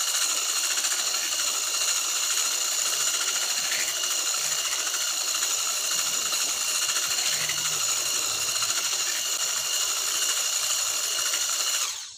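Electric hand mixer running steadily at one speed, its whisk beater churning cake batter in a plastic bowl, with a steady high motor whine. The motor cuts off suddenly near the end.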